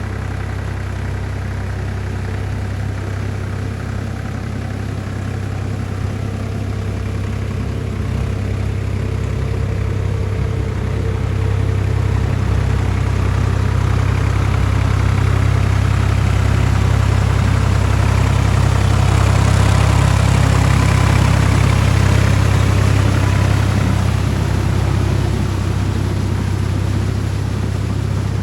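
Solis 5220 tractor's diesel engine running steadily under load while working a rotavator through mud. It grows louder over the first two-thirds, then eases a little near the end.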